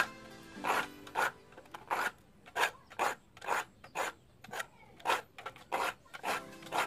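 Steel hand file rasping across the teeth of a hand saw in short repeated strokes, about two a second, sharpening the saw's teeth one gap at a time.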